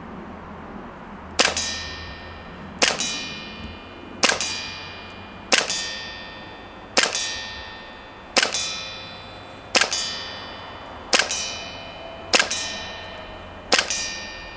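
Carbon8 M45CQP CO2 gas blowback airsoft pistol fired slowly, one shot at a time: ten sharp metallic cracks about a second and a half apart, each followed by a ringing tail that fades over about a second.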